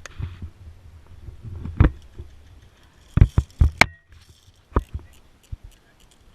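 A handful of sharp, irregular clicks and knocks, with a low rumble of movement noise in the first couple of seconds that fades out.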